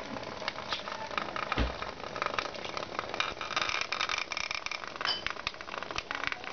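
Hexbug vibrating bristle-robot toys buzzing and rattling as they skitter along a plastic track, with rapid clicks as they knock against the track walls. A single dull thump about one and a half seconds in.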